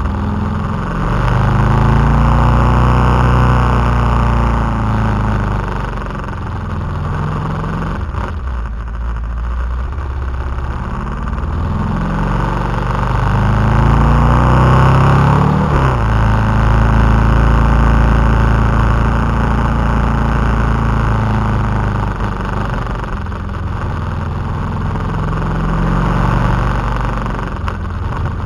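KTM 990 SMT's LC8 V-twin engine heard from on board the moving motorcycle, revving up and easing off several times through the bends, with a sharp drop in revs about halfway through. A steady rush of wind noise runs under the engine.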